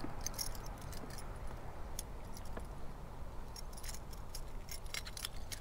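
Fishing tackle handled at close range: scattered light metallic clicks and jingles from the buzzbait's metal blade and wire rattling, over a low steady rumble.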